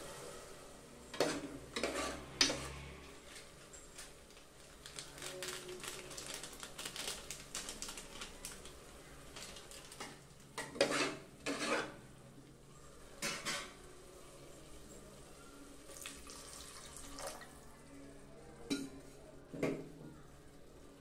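Steel ladle scraping and knocking against the sides of an aluminium pressure cooker while stirring frying onion-tomato masala. The strokes come irregularly, with louder clusters about a second in, around the middle and near the end.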